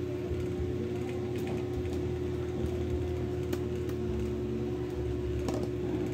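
A steady hum runs throughout. Over it come a few light, sharp clicks and taps: the plastic laptop body and a small screwdriver being handled, with one near the end as the screwdriver is set down.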